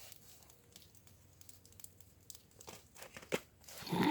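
Crinkling and rustling with scattered light taps, growing busier and louder in the last second or so, as a cat plays with a toy.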